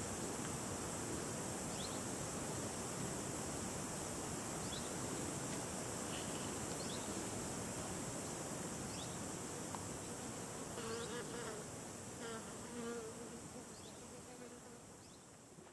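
Low, steady buzz of a white-line dart moth vibrating its wings while at rest, the shivering that warms its flight muscles before take-off; it fades toward the end.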